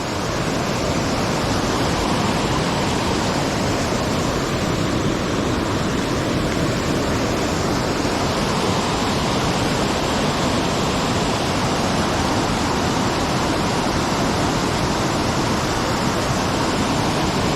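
Waterfall on the Falls River pouring steadily, an even rushing noise of falling water that does not change.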